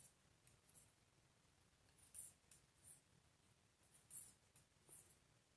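Knitting needles clicking and scraping faintly as stitches are purled along a row: soft, high, scratchy ticks at an uneven pace of about one every half second to a second.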